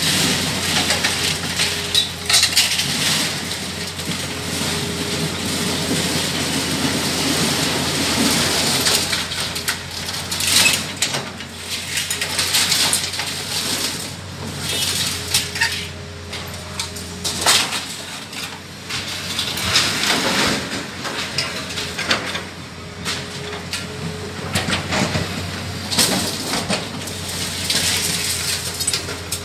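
Scrap iron clanking and crashing in irregular bursts as an excavator's lifting magnet picks up and drops loose metal, with the excavator's engine running steadily underneath.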